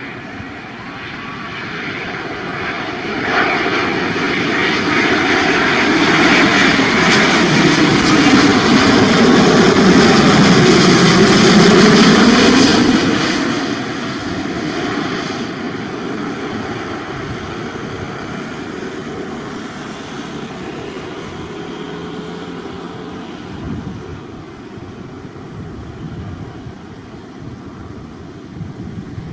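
Air New Zealand Boeing 787-9's Rolls-Royce Trent 1000 jet engines on final approach, passing low overhead. The jet noise swells sharply a few seconds in and is loudest from about six to thirteen seconds. It then drops away and fades steadily as the airliner descends to the runway.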